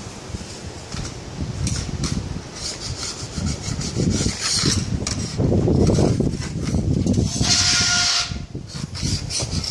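Hand scraping and rubbing along the bottom track of a uPVC tilt-and-slide door in irregular strokes, with one louder, higher scrape and a faint brief squeal about three quarters in.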